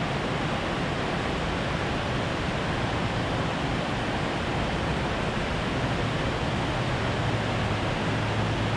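Steady rushing of water pouring over the low dam's spillway, an even noise with a low rumble underneath.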